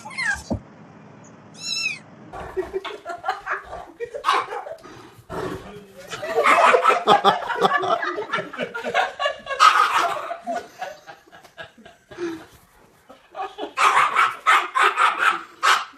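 A pet animal's vocal noises mixed with people laughing, in long dense stretches around the middle and again near the end.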